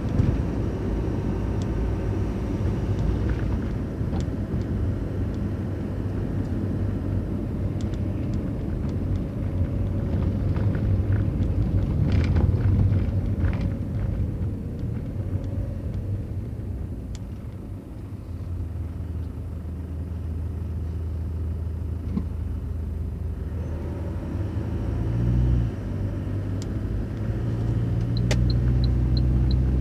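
Road and engine noise heard inside a moving car: a steady low rumble of tyres and engine that eases about halfway through and builds again, with a quick regular ticking near the end.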